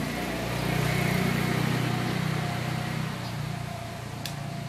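A motor vehicle's engine running as a low, steady hum that grows louder about half a second in and fades off again, with a sharp click near the end.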